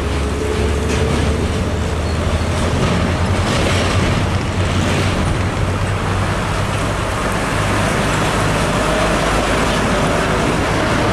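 Mitsubishi Fuso container tractor-trailer's diesel engine running at low speed as the truck turns and passes close by, with motorcycles and other road traffic. A steady low drone.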